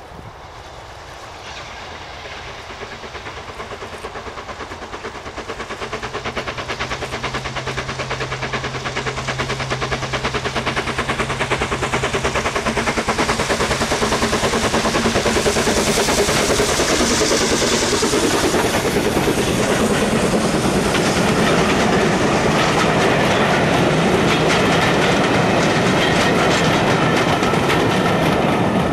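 Steam-hauled passenger train approaching and running past at speed. It grows steadily louder over the first half, then the coaches' wheels keep up a fast clickety-clack over the rail joints as they pass close by.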